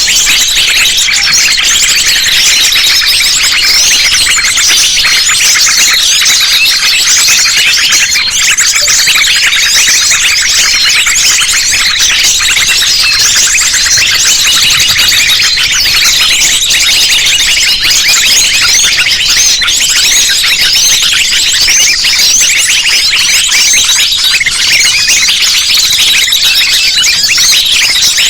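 A dense, overlapping chorus of small birds such as sunbirds and spiderhunters, a constant high, rapid chirping and trilling chatter. It is a mixed lure recording meant to draw small birds in for trapping.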